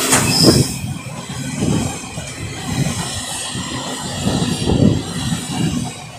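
Empty container flat wagons of a freight train rolling past, their wheels clattering in repeated bursts over the track, with a brief high wheel squeal about half a second in.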